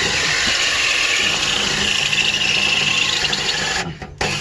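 Power drill boring into metal, running steadily for about four seconds, stopping briefly, then a short final burst near the end.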